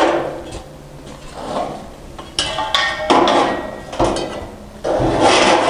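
Irregular rubbing, scraping and knocking of hardware being handled, in uneven bursts, the loudest a couple of seconds in and near the end: the rubber hose and gas regulator being worked onto the heater's gas fitting.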